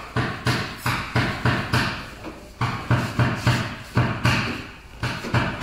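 Rhythmic knocks from a paintless dent repair tool working a deep crease in a Honda CR-V's steel front fender, about three a second with a brief pause partway through, as the crease is worked outward.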